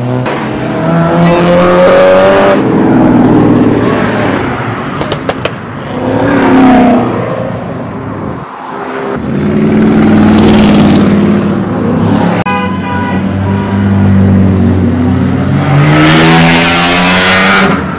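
Several sports cars accelerating hard as they drive past one after another, their engines revving up and falling away in pitch with each pass.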